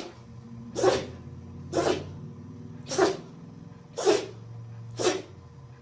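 Dog sneezing over and over, a run of short sharp sneezes about one a second.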